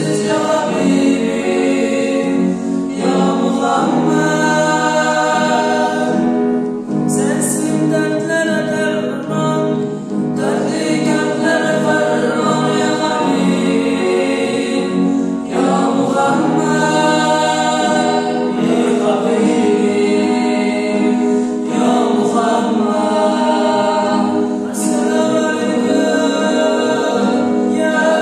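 Male vocal group singing an Uzbek song a cappella in several-part harmony, in phrases broken by short breaths every few seconds.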